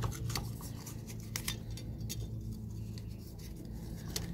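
Scattered light clicks and small scrapes of a plant label being handled where it hangs on a wire orchid hanger, over a steady low hum.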